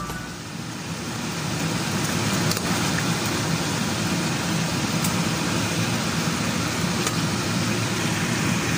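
Pot of chicken curry boiling on the stove: a steady bubbling noise with a few faint clicks.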